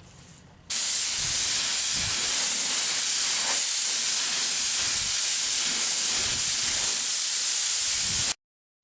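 DeVilbiss FinishLine paint spray gun triggered: a steady, loud hiss of air rushing through the gun, starting suddenly about a second in and cutting off abruptly near the end.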